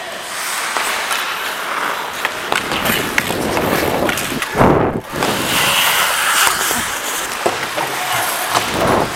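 Ice hockey skates carving and scraping across the rink ice, with scattered sharp clacks of sticks and puck. A louder scraping rush comes about halfway through.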